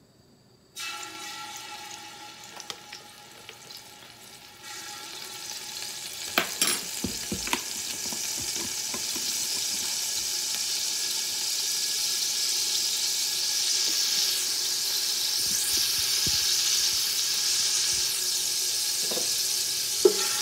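Minced garlic sizzling in hot oil in a stainless steel pot and being stirred with a wooden spoon. The sizzle starts faint and builds over the first several seconds into a steady hiss. A few knocks come about six to seven seconds in, and one more near the end.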